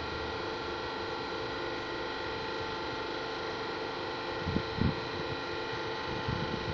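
A steady machine hum with hiss, with a few low knocks about four and a half seconds in.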